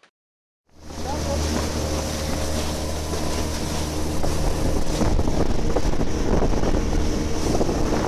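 Small motorboat under way: its outboard motor runs with a steady low hum, wind buffets the microphone, and choppy water washes against the metal hull. The sound starts abruptly about a second in.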